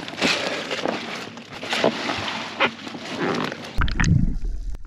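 Cobia being shoved into an insulated fish bag packed with bagged ice: irregular rustling, sliding and crunching of fish, ice and bag. A low rumble of handling on the microphone comes in near the end.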